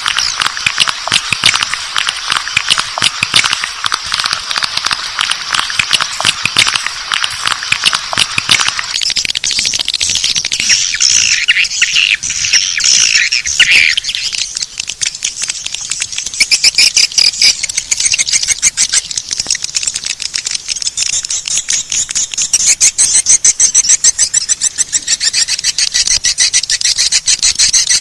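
Swiftlet lure call recording: a dense, rapid stream of swiftlet chirps and twitters. About nine seconds in it shifts to higher-pitched twittering. It is the kind of call sound played in swiftlet houses to draw the birds in to nest.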